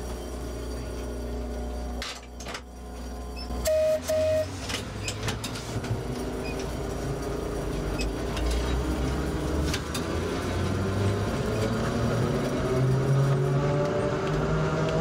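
Narrow-gauge electric tram pulling away: a few clicks, two short beeps, then the electric motors' whine rising slowly as it gathers speed, with scattered clicks along the way.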